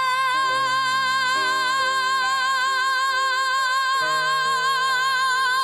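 A pansori-trained female singer holds one long, loud high note with a steady vibrato. Band accompaniment changes chords underneath.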